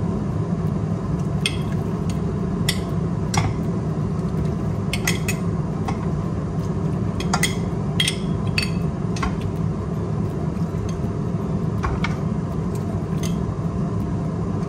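A metal spoon clinking against a glass jar and a frying pan as pickled papaya is spooned from the pan into the jar: irregular sharp clinks over a steady low hum.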